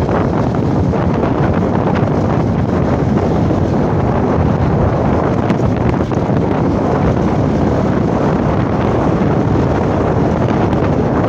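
Loud, steady wind noise buffeting the microphone of a phone carried on a moving motorcycle.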